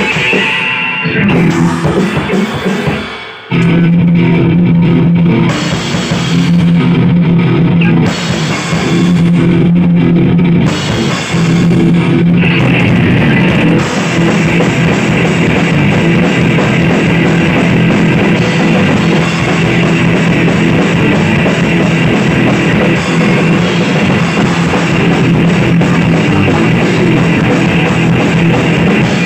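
Punk band playing live in a rehearsal room: electric guitars, bass guitar and a Pearl drum kit, loud. The first twelve seconds are stop-start chord hits with short breaks, then the full band drives on steadily without vocals.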